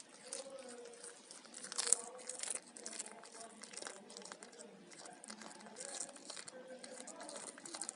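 A cat chewing and tearing at fish, with a dense run of crunching, clicking bites.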